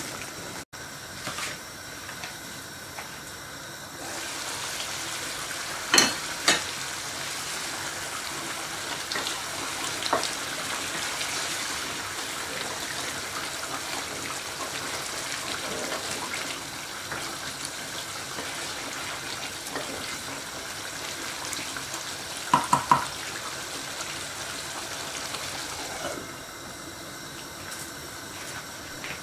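Deer meat curry simmering and sizzling in an aluminium pot on a gas burner, with a steady bubbling hiss that grows louder while the lid is off and the curry is stirred. It is broken by a few sharp metal clinks of the lid and spoon against the pot, then muffled again near the end once the lid is back on.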